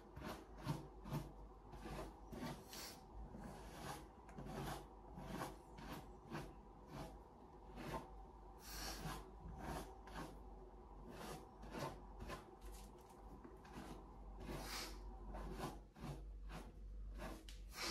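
Faint, irregular rubbing and scratching strokes, several a second, with a few stronger rasping strokes spread through.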